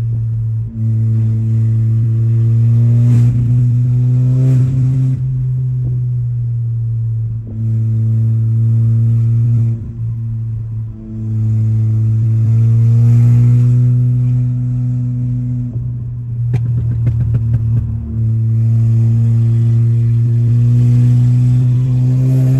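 Volkswagen Golf GTI Mk7's 2.0-litre turbocharged four-cylinder engine pulling on a drive, its steady hum slowly rising in pitch, then dropping away and picking up again several times. A brief rattly stretch comes about three-quarters of the way through.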